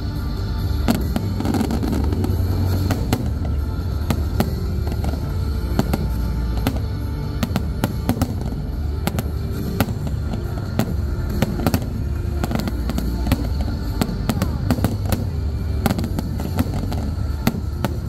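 Aerial fireworks bursting, many sharp cracks in quick irregular succession over a steady low rumble, with music playing alongside.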